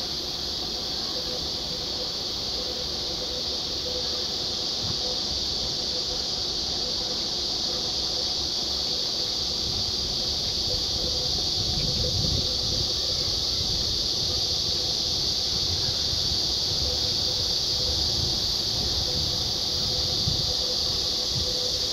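Steady high-pitched drone of a cicada chorus in the trees, with a low rumbling noise underneath that grows a little after about ten seconds.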